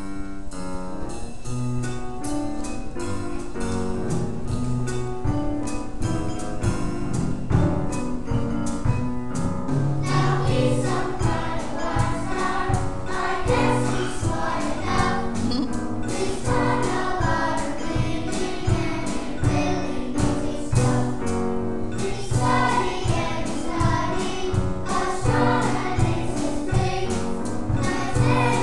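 Choir singing a hymn to an instrumental accompaniment with a steady beat; the voices grow louder about ten seconds in.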